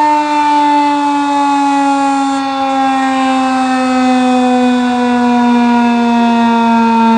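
Federal Signal 2001-130 AC/DC outdoor warning siren sounding a steady wail whose pitch slowly and evenly falls.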